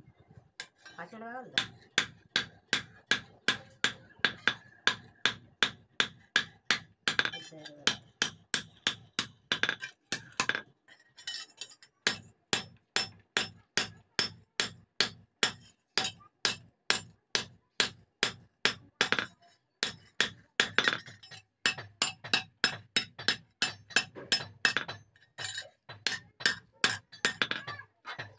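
Hand hammer striking a steel straight sickle (sidka hasua) blade on an iron anvil block: a steady run of ringing metal blows, about two to three a second, with a short pause about eleven seconds in.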